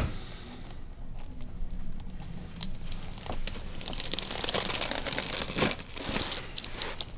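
Rustling and crinkling as a patient shifts and is positioned on a chiropractic treatment table, louder in the second half.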